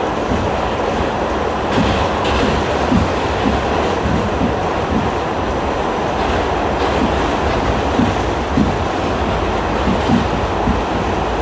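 New York City subway D express train heard from inside the car while running between stations: a steady rumble and rattle with scattered wheel clicks and knocks.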